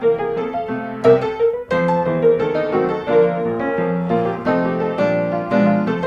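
Background music: a light piano tune played in quick, even notes.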